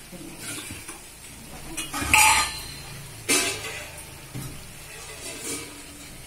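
Wooden spatula stirring and scraping a thick vegetable masala in a clay pot, with two louder scrapes or knocks against the pot about two and three seconds in.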